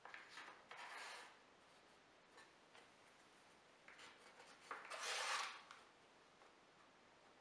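Plywood sliding and rubbing against plywood as a jig part is pushed along a wooden fence: a short scrape at the start and a louder, longer one about five seconds in, with a few faint handling taps between.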